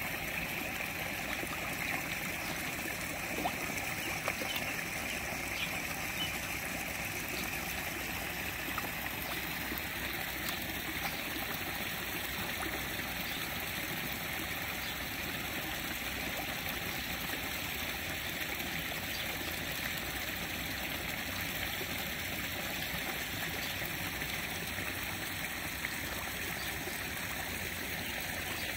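Steady trickling, running water in a koi pond, with a few faint ticks in the first few seconds.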